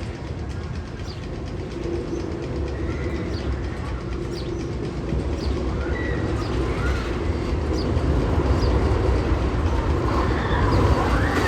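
Roller coaster train rumbling along its track, a steady low rumble growing louder, with a few faint high squeals and light clicks.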